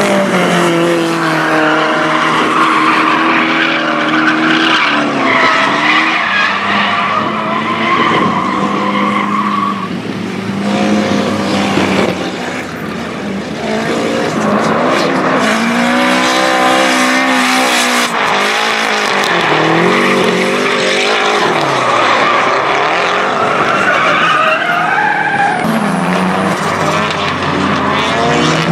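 Nissan S-chassis drift cars sliding through a cone course: engines revving up and down again and again, with tyres squealing throughout.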